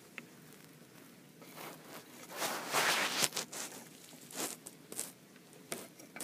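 Handling noise of a pencil being worked through a small picture frame: rustling and scraping that swells about two seconds in, then a few short sharp clicks near the end.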